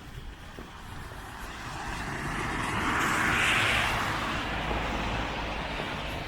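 A car driving past on a snow-covered street: its tyre hiss swells to a peak about three seconds in, then fades away.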